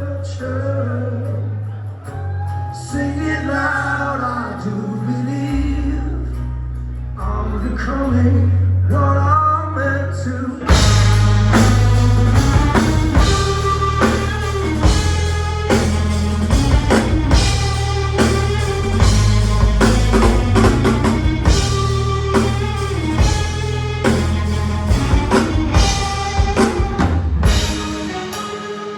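Rock band playing live: a singer's voice over sustained low bass and keyboard notes, then about ten seconds in the full band comes in loudly with drums and electric guitar.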